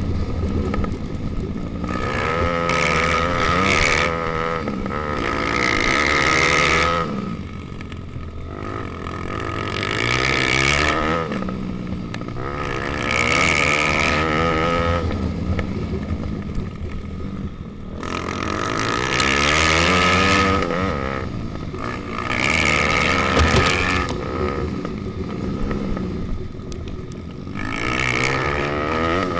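Pitbike engines revving hard and easing off in repeated surges every few seconds as the bikes race up and down a dirt track, heard close up from a following bike. A steady high whine runs under the engine note.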